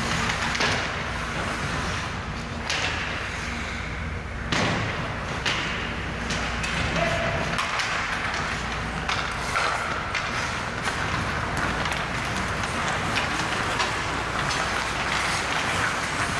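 Ice hockey play on a rink: a steady scrape and hiss of skates on the ice, broken by a dozen or so sharp clacks and thuds from sticks, puck and boards.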